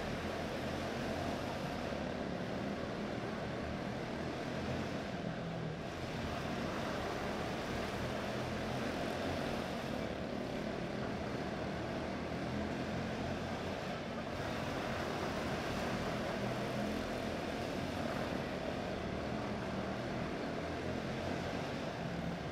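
Senior Honda quarter midget race cars running laps, their small Honda engines making a steady, unbroken drone.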